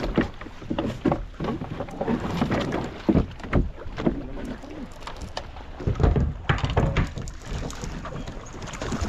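Water slapping against a small open boat's hull in irregular thumps and knocks, several a second, as the boat rocks at sea.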